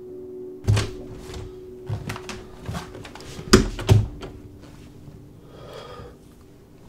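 Knocks and thumps against a wooden panel door: a run of sharp hits, the loudest two about half a second apart a little past the middle, over a faint steady hum.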